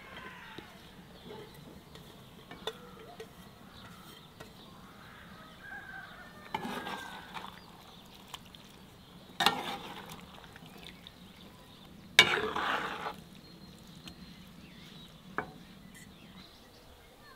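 Perforated metal skimmer stirring fruit, pumpkin and meat in a cast-iron pan: a few short scrapes and sharp knocks of metal on the pan, the loudest about twelve seconds in.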